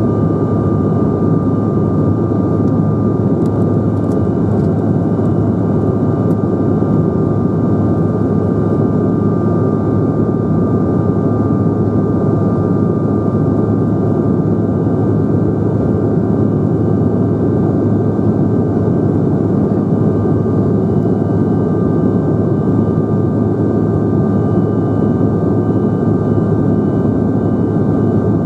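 Inside the cabin of a Bombardier CRJ900 climbing after takeoff: a steady roar of engine and airflow noise from its twin rear-mounted GE CF34 turbofans, with a couple of thin, steady whining tones above the roar.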